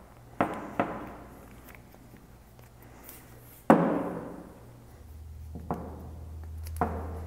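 Handling noises from a rubber hydraulic hose and its steel fitting as a plastic dust cap is worked onto the end: a few separate knocks and clicks, the loudest a thunk a little past halfway. A low hum comes in near the end.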